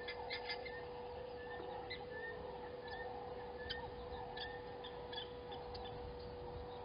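Outdoor bush ambience: scattered short bird chirps and a soft, repeated call that swells and fades, over a steady hum.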